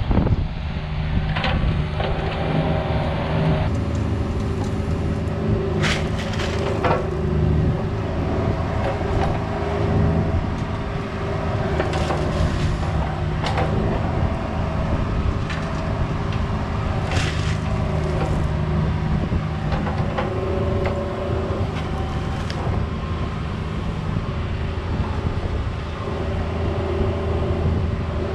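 Cat 304 mini excavator's diesel engine running steadily, with several short clanks and scrapes scattered through.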